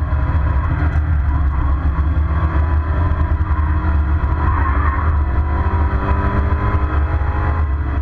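Mazda MX-5 race car's four-cylinder engine running steadily at speed, heard from inside the cabin as a loud, low drone mixed with road noise.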